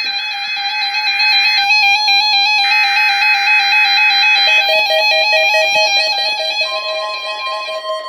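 NOAA Weather Radio emergency alert signalling for a weekly test: two harsh, screeching bursts of digital EAS header data, each about two seconds long, over a warbling electronic tone. About two-thirds of the way in, a steady single-pitch tone comes in, consistent with the 1050 Hz warning alarm tone.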